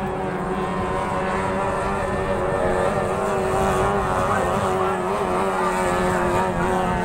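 Outboard engine of a racing speedboat running flat out, a steady high-revving drone whose pitch wavers slightly.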